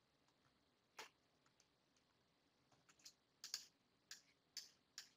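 Near silence broken by faint, sharp clicks and taps: one about a second in, then a run of about six, roughly two a second, from about three seconds on.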